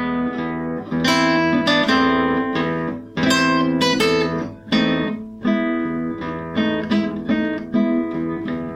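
Solo acoustic guitar playing a piece, plucking and strumming one chord after another, a new chord every half second to second.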